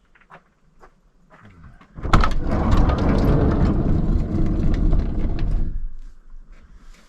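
A loud vehicle noise that starts suddenly about two seconds in, lasts about four seconds, then dies away, after a few faint clicks.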